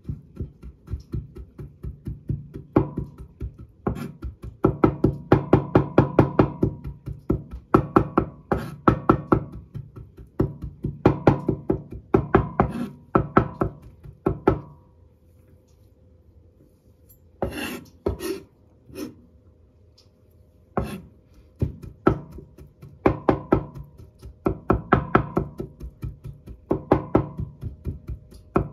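Kitchen knife chopping carrot on a cutting board in rapid runs of quick strokes, each run a second or two long, with a pause of a few seconds about halfway through.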